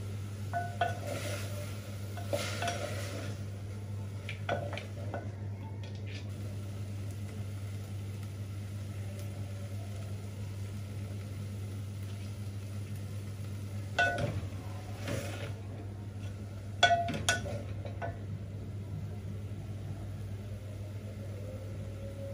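Scattered knocks and clinks of kitchen utensils against an aluminium cooking pot of meat and onions, the busiest stretch coming in the second half, over a steady low hum.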